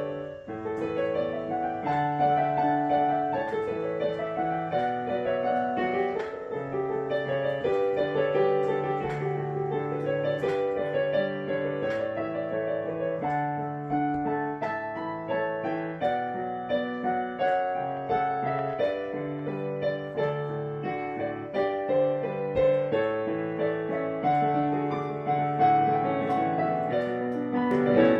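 Piano playing a slow, gentle piece: held low bass notes under a melody of single struck notes.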